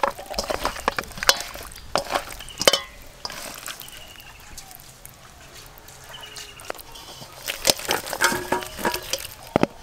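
Raw fish pieces being mixed by hand with spice paste and mustard oil in a steel bowl: wet squelches and light clinks against the metal, sparser in the middle and busier again near the end.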